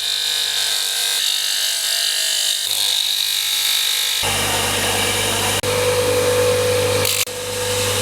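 An electric power tool running with a steady motor hum and a hissing grind as it works a piece, in several short takes that change abruptly about a third and halfway in and again near the end.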